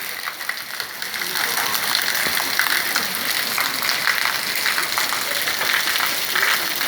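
Heavy rain falling in a dense, steady patter of drops.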